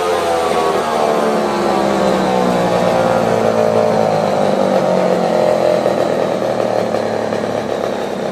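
Vintage Homelite two-stroke chainsaw engine running steadily at a lower speed after being revved, its pitch holding fairly even.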